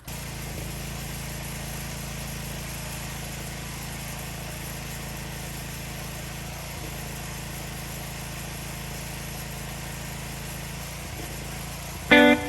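Pressure washer running steadily: a constant motor hum under the hiss of the water spray.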